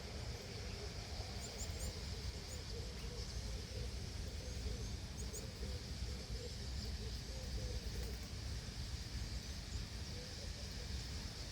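A large flock of birds in flight, their many wings making a steady rushing sound, with a few faint high chirps.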